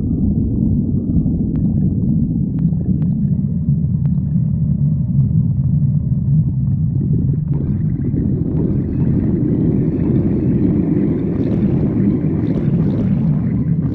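Stomach growling: a continuous low rumble that grows fuller and brighter from about halfway through, with a few faint clicks in the first half.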